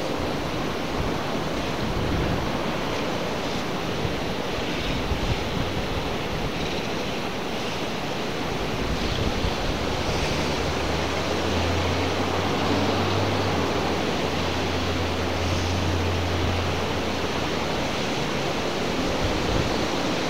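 Rain-swollen river in flood, its water rushing steadily. A low hum joins in for several seconds in the middle.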